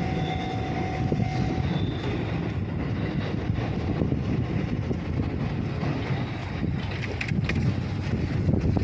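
Electric train running by on the Tokaido Line, a steady low rumble with a whine that fades out about a second and a half in.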